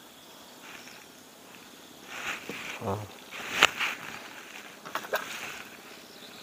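A few sharp clicks and knocks from fishing tackle being handled in a small boat, the loudest about three and a half seconds in, over a faint steady hiss.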